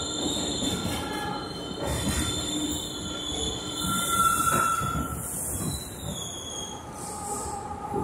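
An R62A subway car running, heard from inside the car: a steady rumble of wheels on track, with several high-pitched squealing tones from the steel wheels on the rails held through it.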